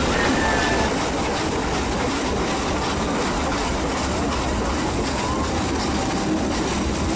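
Nilgiri Mountain Railway metre-gauge train running: a steady rumble and rattle of the carriages on the track, with a couple of brief, faint wheel squeals.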